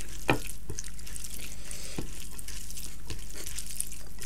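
Wet, squelching clicks of cooked rice being squeezed and mixed by hand with curry broth on a plate, in scattered short bursts.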